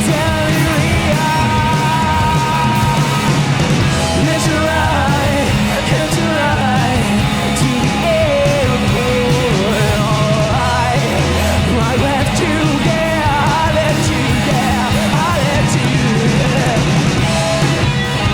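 A rock band playing live with electric guitar, bass and drums: a loud, dense, driving passage with lines bending up and down in pitch.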